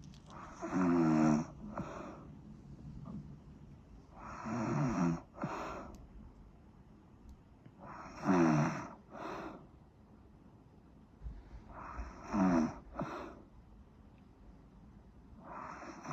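Snoring in a steady rhythm, about one breath every four seconds. Each cycle is a loud buzzing snore on the breath in, followed by a short, quieter puff on the breath out.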